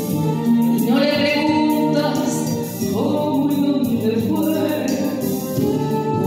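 A woman singing live into a microphone over musical accompaniment, sliding up into long held notes about a second in and again about three seconds in.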